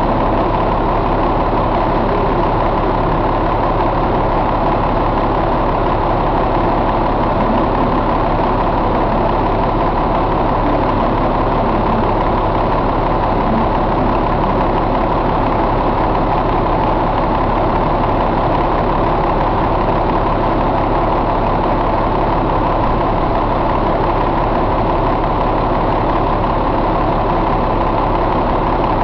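1998 Caterpillar C12 inline-six diesel engine idling steadily.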